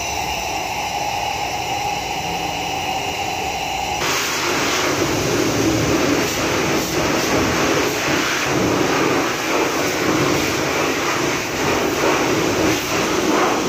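High-pressure washer spraying the underside of a car on a lift: a continuous loud hissing rush of spray, with the washer's machine running. About four seconds in, the sound turns abruptly louder and rougher.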